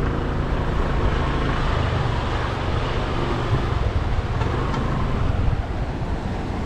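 Motorbike engine running steadily while riding, with wind and road noise on the microphone.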